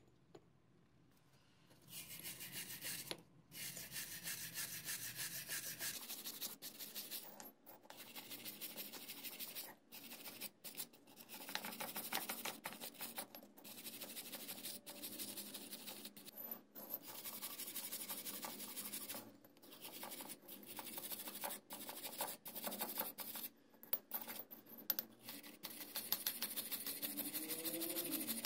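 Rusty steel claw-hammer head scrubbed rapidly back and forth by hand on a gritty abrasive surface: a harsh scraping rasp that starts about two seconds in and runs in long stretches broken by short pauses. It is the sound of rust being ground off the head.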